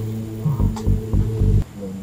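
Background music: a low steady drone with a pulsing low beat, which drops away near the end.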